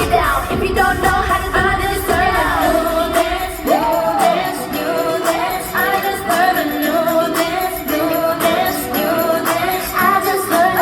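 Female pop vocal group singing live over an amplified backing track. The heavy bass drops out about four seconds in, and the voices and melody carry on over a lighter beat.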